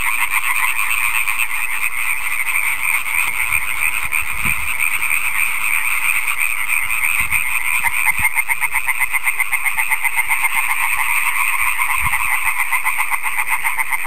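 Loud chorus of male European tree frogs (Hyla arborea), many calling at once in a dense, unbroken rapid rattle.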